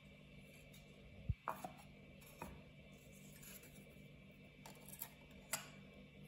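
Hands handling a small camera part, a plastic mount plate with a metal lens-mount ring, on a table: a low thump a little over a second in, a few light clicks and taps soon after, and two more clicks near the end, over a faint steady hum.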